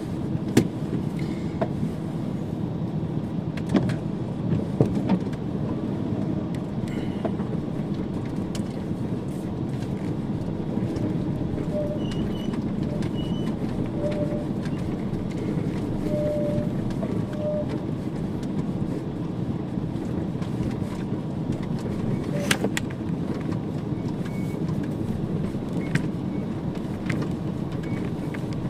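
Fiat Fiorino van driving off-road on a mountain track: steady engine and road noise, with scattered knocks and rattles, the loudest about 22 seconds in.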